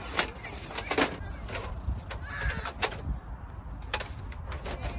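Thin rolled metal stovepipe being handled and shifted: a series of sharp metallic clicks and ticks, irregularly spaced, the strongest about a second in.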